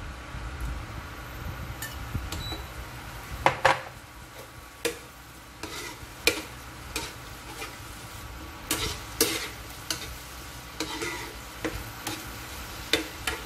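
Metal spoon stirring vegetables in sauce in a frying pan, clinking and scraping against the pan about ten times, over a steady sizzle from the hot pan.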